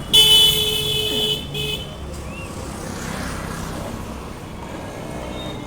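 A vehicle horn sounds, one long toot followed by a short one, over steady street traffic noise.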